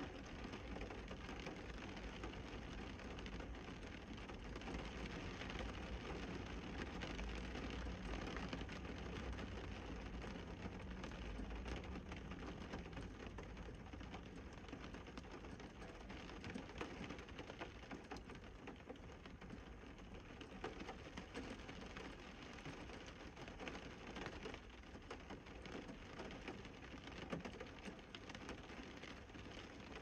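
Steady rain pattering on a surface: a dense scatter of drop ticks over a constant hiss.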